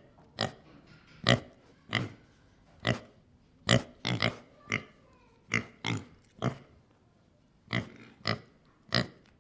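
Pig grunting: a run of about fourteen short, sharp grunts at uneven intervals, some coming in quick pairs.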